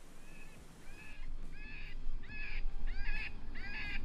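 A string of short, harsh cawing calls, about two a second, faint at first and growing louder from about a second in.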